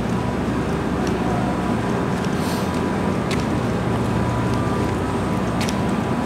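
Steady mechanical drone with a constant low hum, like running machinery or air handling, with a few faint clicks.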